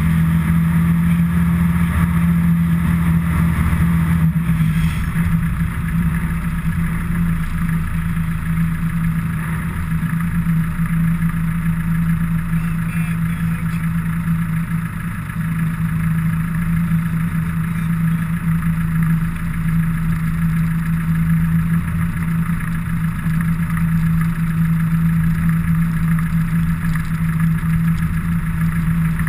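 A motor vehicle's engine running steadily at one unchanging pitch, with a low rumble beneath it.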